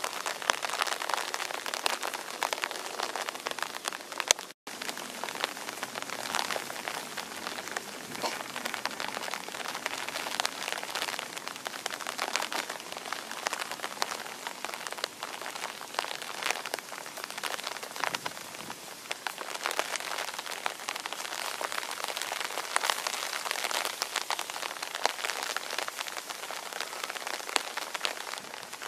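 Steady rain falling on forest foliage, a dense hiss flecked with the patter of single drops. The sound cuts out for an instant about four and a half seconds in.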